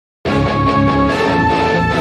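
Music starting abruptly about a quarter second in, with several held notes sounding together at a steady level.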